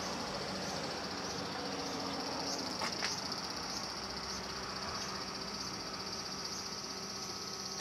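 Steady high-pitched drone of insects calling outdoors, with a faint pulsing on top, and a light click just under three seconds in.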